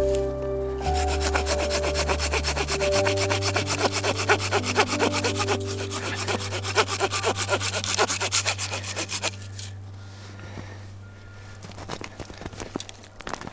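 A hand saw cutting through wood in quick, even back-and-forth strokes, over soft background music; the sawing stops about nine seconds in, leaving a few scattered small knocks.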